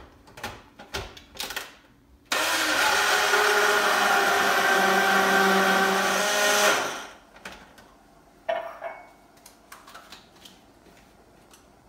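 An electric blender starts suddenly and runs for about four and a half seconds with a steady whine, blending milk, strawberries and ice cream into a milkshake, then winds down. A few knocks come before it starts and after it stops.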